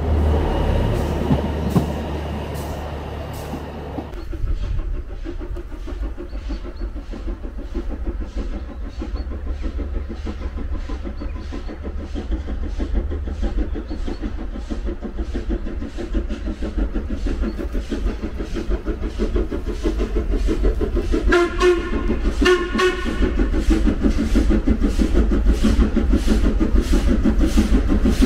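Steam locomotive approaching, its exhaust chuffing in an even beat that grows louder as it nears. About two-thirds of the way through it sounds two short blasts on its whistle. The first few seconds hold only a steady low rumble.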